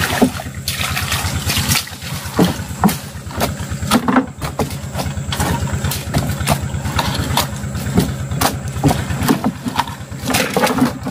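A small boat engine idling steadily at a low, even pulse, with irregular knocks and clatter throughout.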